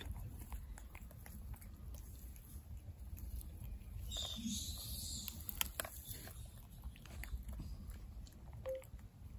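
Baby rhesus macaque chewing and crunching nuts, a run of small sharp cracks and clicks over a low rumble.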